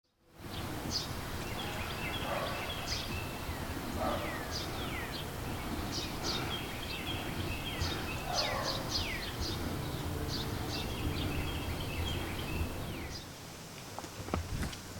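Birds chirping and calling outdoors: many short chirps and quick falling whistled notes, over a steady low rumble. The birdsong stops about two seconds before the end, and a few sharp clicks follow.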